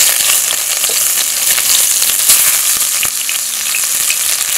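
Sliced onion frying in hot oil in a pot, just added: a steady high sizzle with many small scattered pops.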